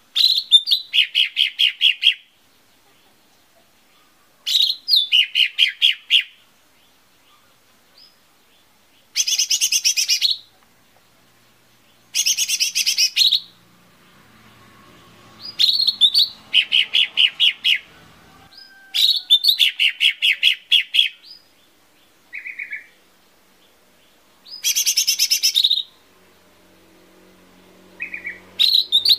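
Caged cucak ijo mini, a small green leafbird, singing loud repeated song phrases, about eight in all, a few seconds apart. Each phrase is a quick rising note followed by a fast run of chattering notes, with two short single calls near the end.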